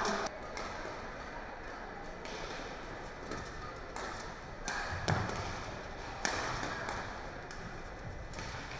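Badminton rackets striking the shuttlecock in a doubles rally: sharp, irregular strikes over low hall ambience, with the odd footfall thud on the court.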